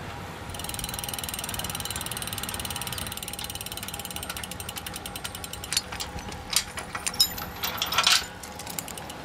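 Fast, even ratchet-like clicking of a small metal mechanism, with several louder, sharper clicks in the second half.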